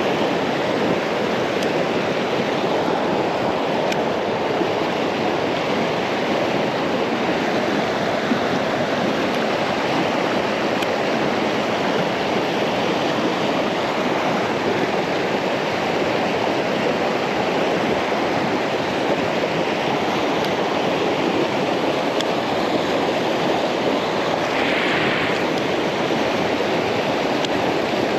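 Steady rushing of river rapids, white water pouring over and around rocks.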